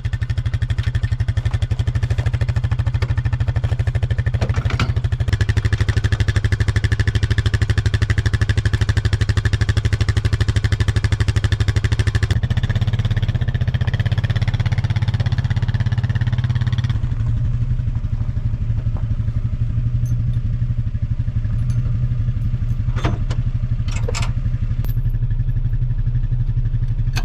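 Four-wheeler (ATV) engine running steadily. Its note changes twice around the middle, and there are a few short knocks near the end.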